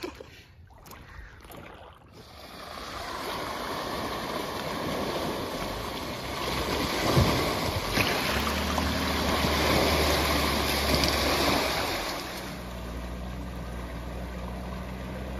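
Jeep Wrangler wading through a shallow river, water rushing and splashing around its tyres. The splashing builds after a couple of seconds and is loudest around the middle, with a low steady engine hum underneath in the second half.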